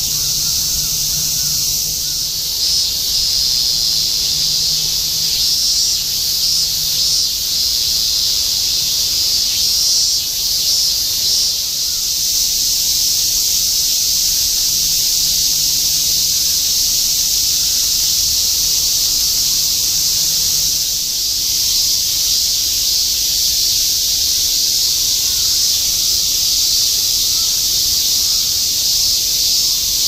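A chorus of many cicadas buzzing together in one dense, unbroken, high-pitched drone.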